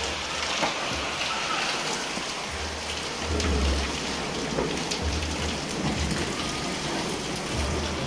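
Steady rain falling on paving and roofs, an even hiss of drops, with a few short low rumbles about two and a half seconds in, around five seconds and near the end.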